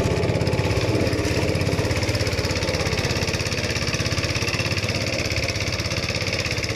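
Small fishing boat's engine running steadily, with a fast even pulse.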